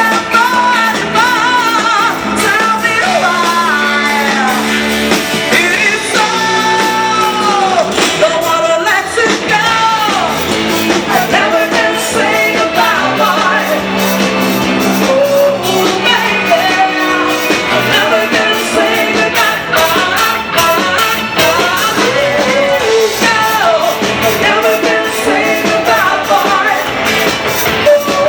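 Live band playing amplified pop-rock, with a lead vocalist singing over the instruments.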